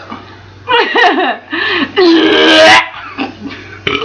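People laughing in several bursts, the loudest and longest about two seconds in.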